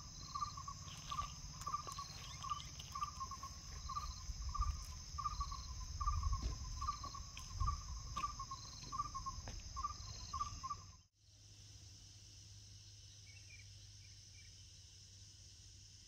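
Insects, crickets or cicadas, making a steady high-pitched drone, with a short call repeating about one and a half times a second over it. About eleven seconds in it cuts off to a fainter, even background hum.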